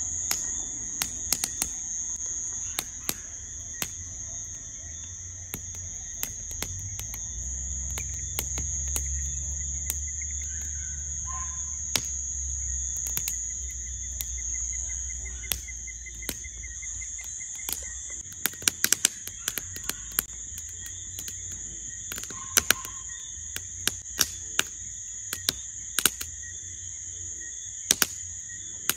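Crickets shrilling in a steady high-pitched chorus, with scattered sharp pops and crackles from a wood campfire that come more often in the second half. A low rumble sits underneath for several seconds in the middle.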